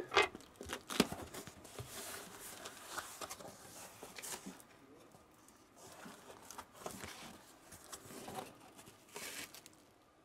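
Packing tape on a cardboard box being cut and slit open: a few sharp clicks near the start, then several scraping cutting strokes with short pauses between them.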